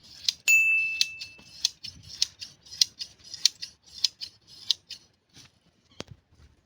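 Hand shears snipping through a sheep's wool, a crisp metal snip about every half second that stops about five seconds in. A single sharp click follows near the end.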